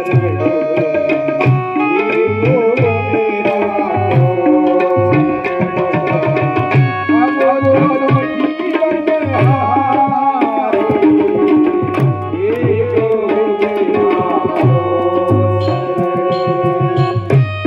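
Live Hindu devotional bhajan music: a tabla plays a steady rhythm under a held, wavering melody.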